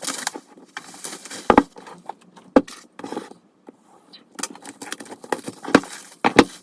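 Merchandise packaging being handled on a table: a string of irregular clicks, taps and light rustles, with a few sharper knocks along the way.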